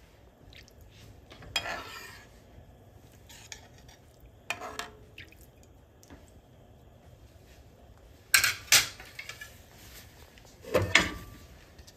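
Metal spoon stirring a watery vegetable mix in a pan, scraping and clinking against the pan in four short bursts. The loudest bursts come in the second half.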